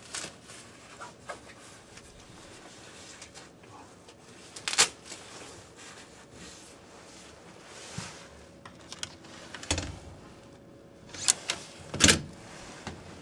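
Clicks and clunks of a hotel room door's keycard lock and metal lever handle being worked. The loudest sharp click comes about five seconds in, and a cluster of clicks follows near the end.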